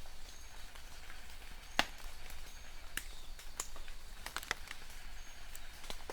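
Rain falling with a steady hiss and close drops tapping at irregular moments, the sharpest drop a little under two seconds in.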